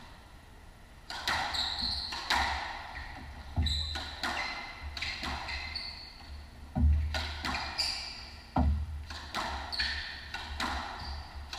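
Squash rally: the ball cracking off rackets and walls about once a second, some hits with a heavier thud, and short high squeaks from shoes on the wooden court floor between the shots.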